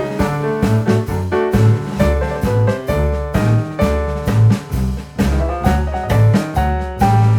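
Upbeat jazzy music with piano, a walking bass line and a drum kit keeping a steady beat.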